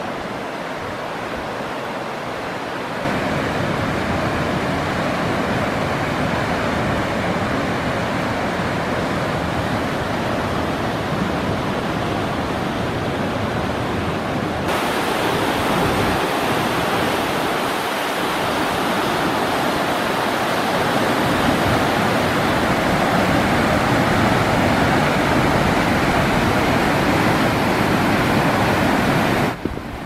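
Rushing water of a river waterfall and rapids: a loud, steady rush of white water. It steps up in loudness about three seconds in and turns brighter and hissier about halfway through.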